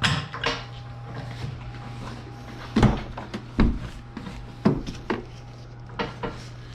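A series of separate knocks and clunks, as of parts and tools being handled, over a steady low hum.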